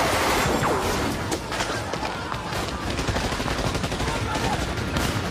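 Gunfire in a shootout: many rapid, overlapping shots.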